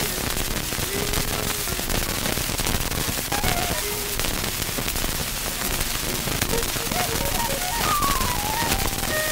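Heavy, steady crackle and hiss of surface noise from a Recordio home-recording disc being played on a turntable. A few faint, brief pitched sounds from the recording show through the noise.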